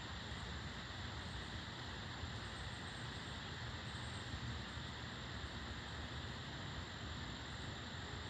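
Steady outdoor ambience of wind hissing through leafy trees, even and unbroken, with a faint high steady whine above it; no thunder is heard.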